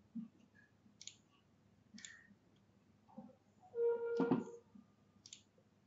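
Computer mouse clicking a few separate times, sharp and sparse. About four seconds in, a louder brief tone comes with a knock.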